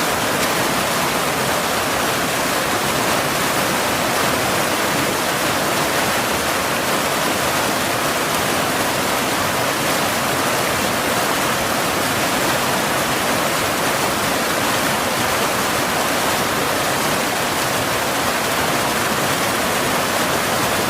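Waterfall: a steady, unbroken rush of falling water, even throughout with no changes or separate sounds.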